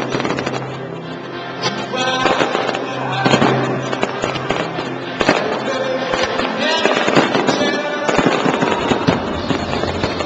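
Fireworks bursting in a rapid series of bangs and crackles, over loud music played with the display.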